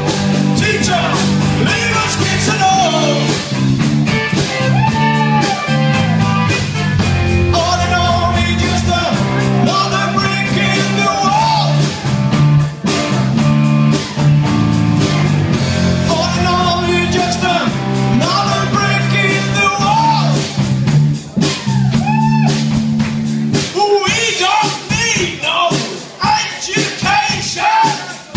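Live rock band playing electric guitars, bass and drums, with a melody line that bends and wavers in pitch over a repeating bass riff.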